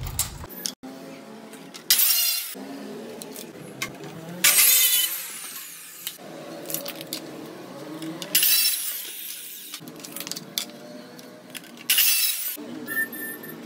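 Handheld cutter machine with a diamond blade cutting WPC panel strips: four loud, high-pitched cuts of about a second each, with the motor running more quietly between them.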